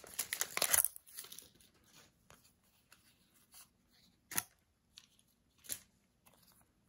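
Foil booster-pack wrapper crinkling and tearing open for about the first second, then quiet handling of the trading cards inside, with scattered light clicks, two of them sharper about four and a half and six seconds in.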